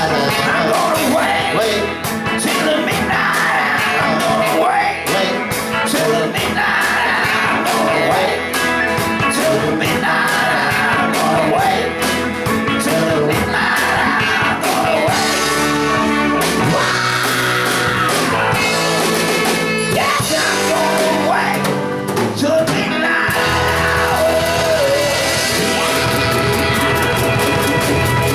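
A live band playing an upbeat soul/rock and roll song with a lead singer and a steady drum beat.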